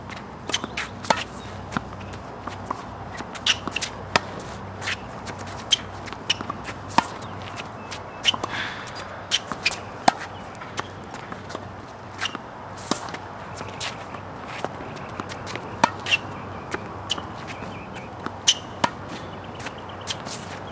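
Tennis balls struck by rackets and bouncing on a hard court in a fed hitting drill: a loud sharp pop of the near player's forehand or backhand every couple of seconds, with many quieter pops of the feeder's hits and the ball bounces in between.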